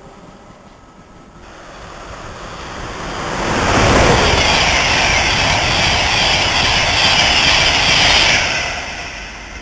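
Express passenger train running through a station at speed: a steady rush of wheels on rail and moving air that builds, stays loud for about five seconds, then fades as the train draws away.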